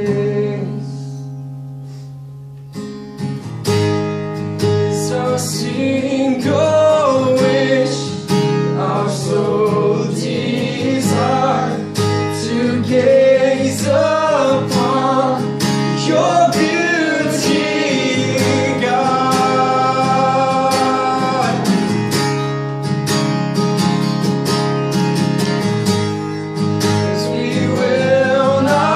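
Acoustic guitar and a man singing a worship song. A chord rings and fades at first, steady strumming picks up about three seconds in, and his voice joins a few seconds later.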